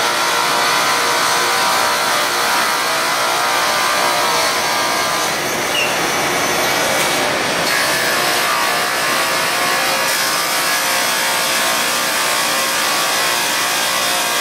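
Fiber cement board sanding and edging line running: electric motors and sanding heads giving a loud, steady grinding machine noise with several steady whining tones.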